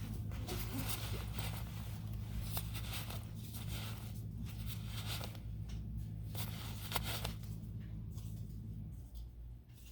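Rustling, scraping and clicking handling noises over a steady low hum, which drops away about nine seconds in.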